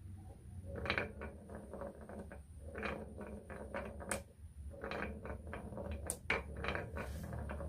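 Marbles rolling and clattering down a wooden marble run: recurring clusters of quick clicks over a steady low rolling rumble, with a few sharp single knocks.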